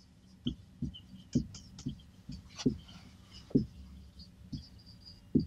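Marker pen writing on a whiteboard: a series of soft, irregularly spaced taps and knocks as the pen strikes and lifts between strokes, with faint scratching of the tip across the board.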